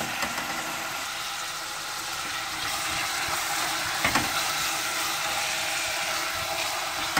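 Diced beef, onions and carrots frying in oil in a pot over high heat while being stirred with a spatula: a steady sizzling hiss, with two brief clacks about four seconds in and near the end.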